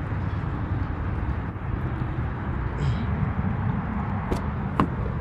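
Steady outdoor noise, a low rumble with a hiss above it, with two short clicks about four and five seconds in.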